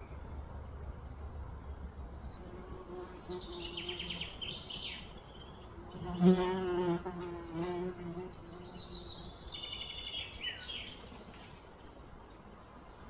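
A fly buzzing close by, its pitch wavering, loudest from about six to eight seconds in. Birds chirp in the background around four and ten seconds in.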